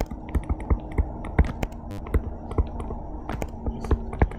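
A stylus tapping and scratching on a touchscreen during handwriting: irregular sharp clicks, several a second, over a steady low hum.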